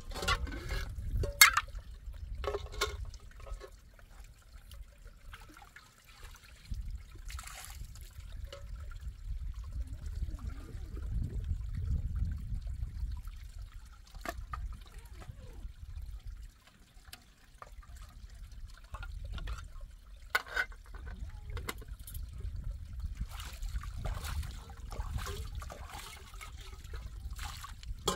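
Water trickling and splashing as a shallow rocky pool is scooped by hand and with a small bowl, with scattered sharp clicks and knocks of metal pots and stones, the loudest about a second in, under a low rumble.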